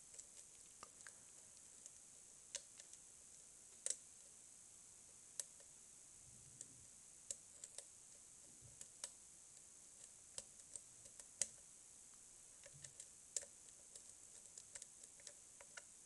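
Soft, irregular clicks and ticks of a lock pick working the pins of a Mul-T-Lock cylinder under tension, with a few sharper clicks among them.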